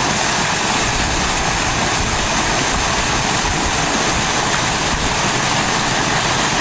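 Steady splashing and rushing of a garden fountain, thin streams of water falling down a rock wall into a pool, an even hiss with no change.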